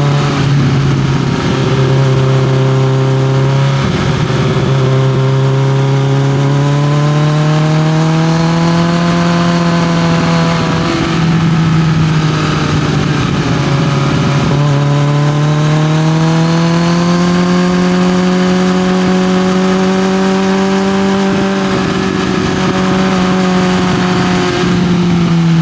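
Kawasaki Z900 inline-four engine running through an SC-Project CRT exhaust, held well above idle, its pitch slowly rising and falling several times.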